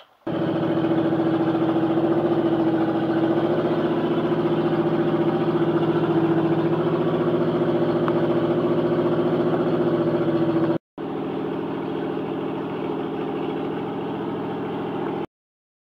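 Motorhome engine idling steadily, heard from inside the cab where the engine sits under the cover between the front seats. It runs loudly for about ten seconds, drops out briefly, then comes back quieter and stops abruptly near the end.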